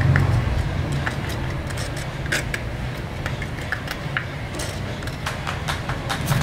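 A wooden or plastic stirring stick scraping and tapping inside a thin plastic cup while two-part epoxy glue is mixed: many small irregular clicks over a steady background hiss.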